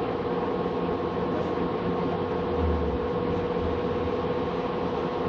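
Steady rumble and hum of a Guadalajara Tren Ligero light rail car running, heard from inside the passenger cabin, with a steady humming tone over the noise.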